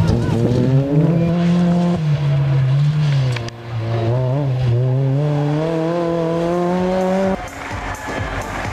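Peugeot 206 rally car's engine at full throttle on a gravel stage, its pitch climbing and dropping repeatedly as it revs and shifts through the gears. The engine sound cuts off abruptly about seven seconds in, giving way to quieter mixed sound.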